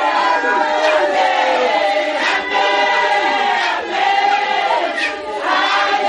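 A congregation of men and women singing together, many voices overlapping in held, gliding notes at a steady loud level.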